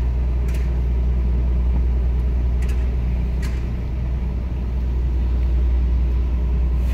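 Steady low engine rumble of a vehicle creeping slowly forward, with a few faint clicks.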